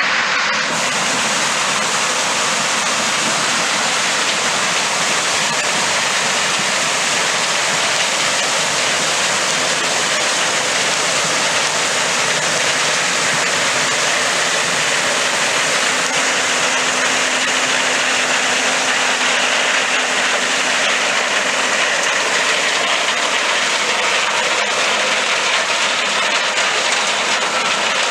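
Harvest machinery running steadily in a corn field: a loud, even rushing noise with no breaks.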